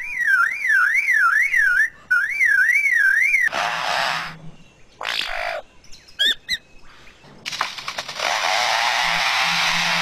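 A superb lyrebird mimicking man-made sounds. First comes a loud siren-like whistle rising and falling about three times a second, then a few short noisy bursts and chirps. From about seven and a half seconds in there is a long rasping chainsaw-like noise.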